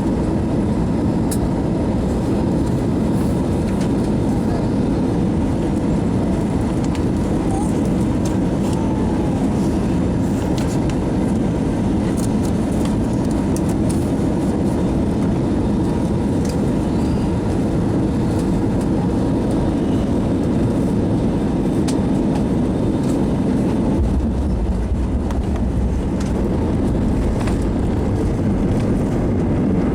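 Steady engine and airflow noise of a jet airliner heard inside the passenger cabin during the approach and landing. A deeper rumble comes in near the end.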